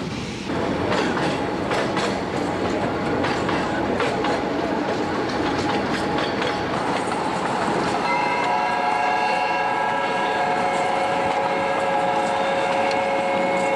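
Narrow-gauge steam train running, with wheels clattering over the rail joints. About eight seconds in, the steam locomotive's whistle starts and holds one long, steady chord.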